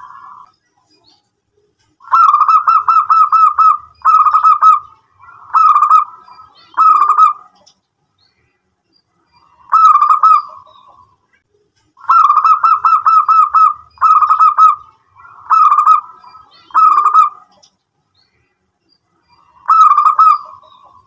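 Local zebra dove (perkutut) cooing: two sequences, each a long, quickly rippling coo followed by three shorter coos, with a single coo between the sequences and another near the end.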